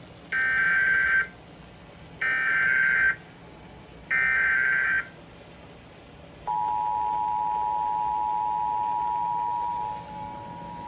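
Emergency Alert System broadcast tones: three roughly one-second bursts of screechy SAME digital header data, encoding a severe thunderstorm warning. About six and a half seconds in, the steady two-tone EAS attention signal starts and holds, dropping a little in level near the end.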